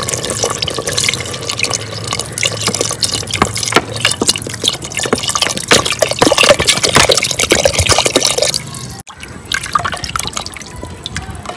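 Water poured from a mug into a clay pot of hot potato curry gravy, splashing for about eight seconds; after a break, quieter stirring with a spatula in the pot near the end.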